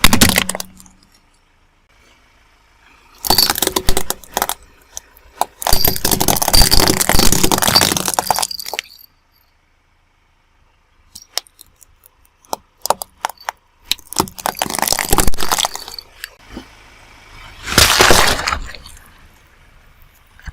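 Objects cracking and crunching as a car tyre rolls over them, in several separate bouts with scattered clicks and cracks in between. The longest crunching lasts about three seconds, near the middle.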